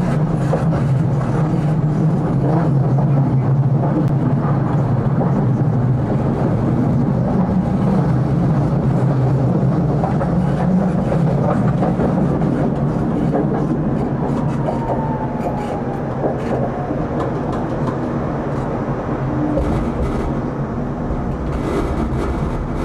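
Tram running along the rails, heard from the driver's cab: a steady rumble of wheels on track with scattered clicks and knocks, and a faint falling whine about two-thirds of the way through.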